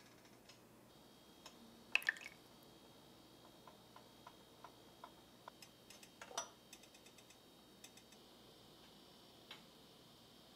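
Small glass beakers clinking and tapping as they are handled: a sharp double clink about two seconds in, scattered light ticks, and a louder clink a little past the middle.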